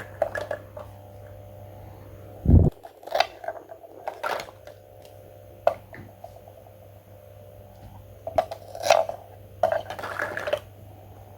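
Handling noises from small objects: scattered clicks, taps and short scrapes, with one heavy thump about two and a half seconds in, over a faint steady hum.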